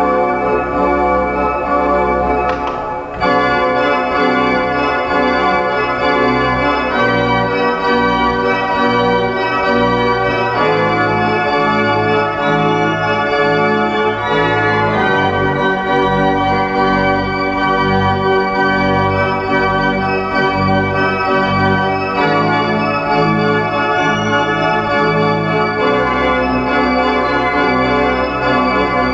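Organ playing a slow piece in G major: sustained chords over a deep bass line, the harmony changing every few seconds, with a short break in the sound about three seconds in.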